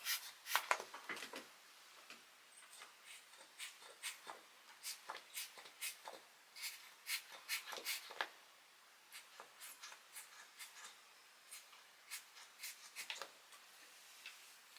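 A brush and small pick tool scraping and clicking in a Razer Blade laptop's ports to dig out dust: faint, irregular short scratches, several a second, thinning out near the end.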